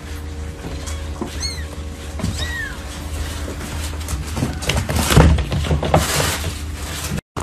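Very young kittens mewing: two short, thin, high cries about a second apart, rising and falling in pitch. Over a steady low hum, with soft scuffling and a louder patch of rustling noise about two-thirds of the way in.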